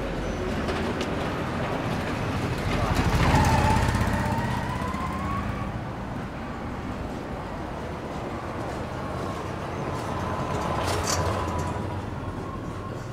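Street traffic: a motor vehicle passes close by, loudest about three seconds in, with a faint rising whine after it and a second, smaller swell near the end.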